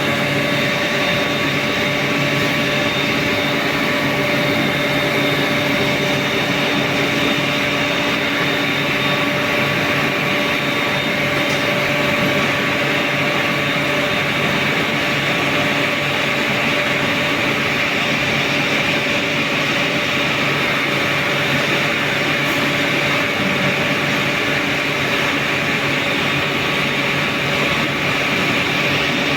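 Steady machinery noise in a steel melting shop: an even roar with a few constant humming tones underneath, unchanging throughout.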